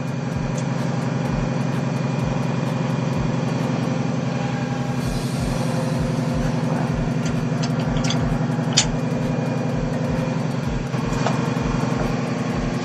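Kamaz 43253 fire truck's diesel engine idling steadily, with a few light clicks about three quarters of the way through.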